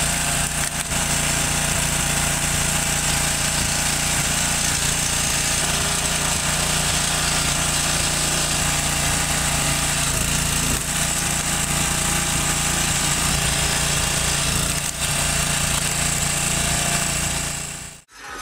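Small single-cylinder petrol engine of a vertical log splitter running steadily, driving the splitter's hydraulic pump. It cuts off suddenly just before the end.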